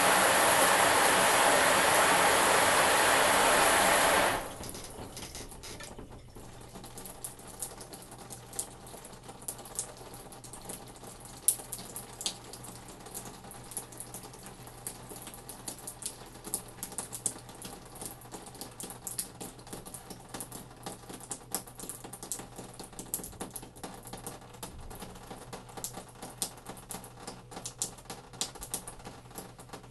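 Shower spray running steadily, shut off abruptly about four seconds in. After that come many small, irregular ticks, typical of water dripping in the shower stall after the flow has stopped.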